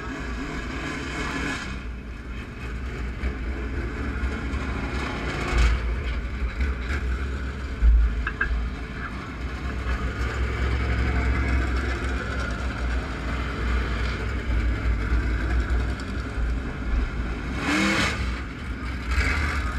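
Dirt late model race cars running hot laps, their V8 engines revving as they come past close by several times over a continuous rumble of cars elsewhere on the track.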